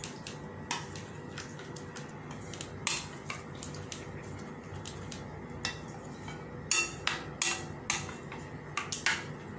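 Spoon stirring a thick semolina-and-curd batter in a ceramic bowl, with irregular clicks and knocks as it strikes the bowl's side, a few louder ones in the later half.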